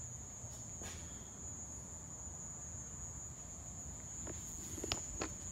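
Steady high-pitched trill of crickets, with a few light knocks near the end.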